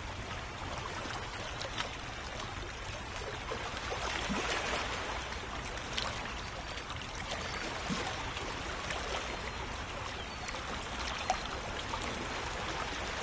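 Steady running water, a trickling, stream-like wash, with a few faint clicks and a sharper one near the end.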